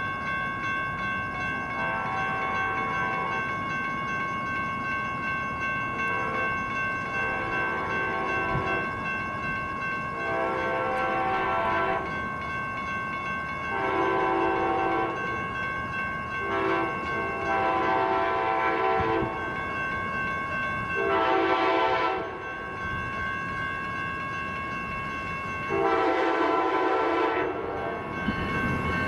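Horn of an approaching Amtrak Cascades train's Siemens Charger locomotive, sounded in a chord of about seven blasts, each one to two seconds long, spaced a few seconds apart. A steady high ringing tone runs underneath throughout.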